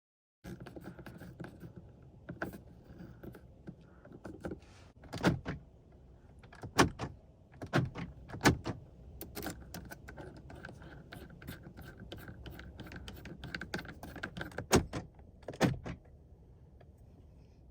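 Irregular clicks and knocks from a replacement door lock pin knob being handled and fitted onto the lock rod of a Mercedes-Benz car door, with a few louder knocks scattered through.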